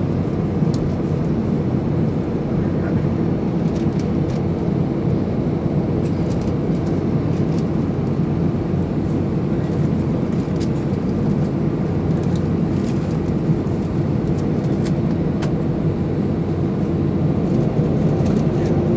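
Cabin noise of an Airbus A320 taxiing after landing: a steady low rumble and hum from the engines and airframe, with a faint steady tone and scattered light clicks.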